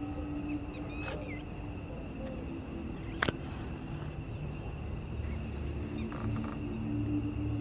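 Outdoor wetland ambience: a steady low rumble under a thin, steady high drone, with a few faint bird chirps about a second in and one sharp click a little after three seconds.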